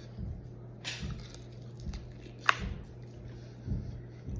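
A person chewing a fried chicken wing close to the microphone, soft wet mouth sounds at an uneven pace, with one sharp click about midway. A steady low hum runs underneath.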